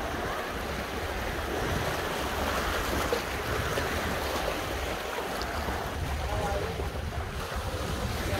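Sea waves washing on the rocky shore, with wind rumbling on the microphone.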